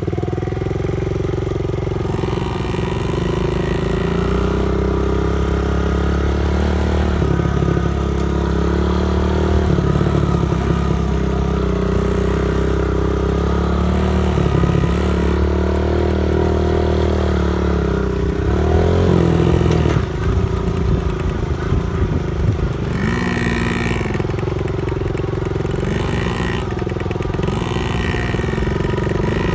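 Dirt bike engine running continuously along a dirt track, its pitch rising and falling with the throttle. It revs up about two-thirds of the way through, and there are several short throttle blips near the end.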